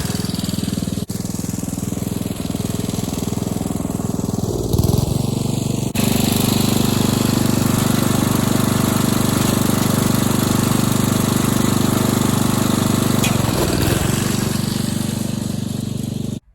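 Riding lawnmower's engine running steadily, growing louder about five seconds in and cutting off abruptly near the end.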